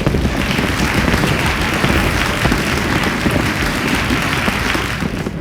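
A large crowd applauding in a dense, steady wash of clapping, with a low rumble underneath; it begins to fade near the end.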